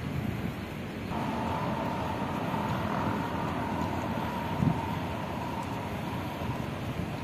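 A steady mechanical hum with a faint constant whine starts suddenly about a second in and holds, over low wind rumble on the microphone.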